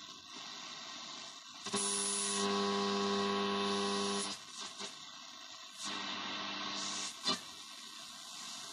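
Tesla Hanák radio being tuned across the shortwave band: hiss and static, with a loud steady buzzing hum that comes in about two seconds in and lasts a couple of seconds. Then more static, and a sharp click near the end.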